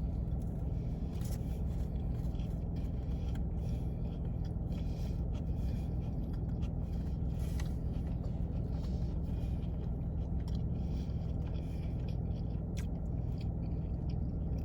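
Quiet chewing and mouth sounds of someone eating a sub sandwich, with small scattered clicks, over the steady low hum of an idling car engine.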